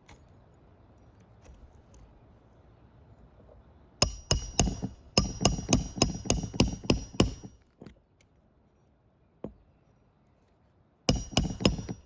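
Hammer driving roofing nails into an asphalt shingle: a quick run of ringing metal-on-metal strikes, about five a second, starts about four seconds in and lasts some three seconds, and a second run begins near the end. The nails fasten a replacement shingle.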